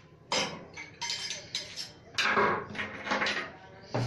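Metal parts clinking and clattering, a string of sharp knocks and rattles one after another.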